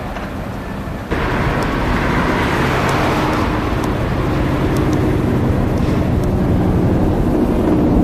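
Steady road traffic noise with a low engine hum, jumping suddenly louder about a second in.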